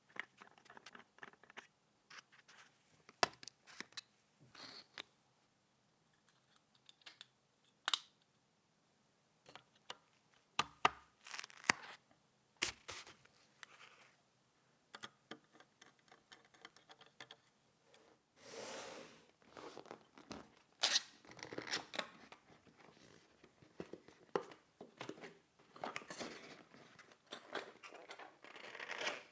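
Hands handling PC parts and their packaging: scattered clicks and taps with rustling and tearing of wrappers, busier in the last third.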